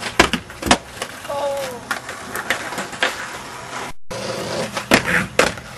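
Skateboard hitting and grinding on a skate box: sharp clacks of the board striking the box and landing, over the steady rumble of the wheels rolling on concrete. A short shout comes about a second and a half in, and the sound cuts out briefly near the middle before more board clacks.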